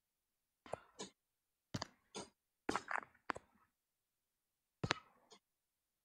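About seven short, faint clicks and breathy noises close to the microphone, with dead silence between them.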